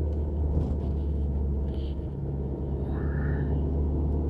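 Steady low rumble of a car's engine and tyres heard from inside the cabin while driving, with a short faint higher tone about three seconds in.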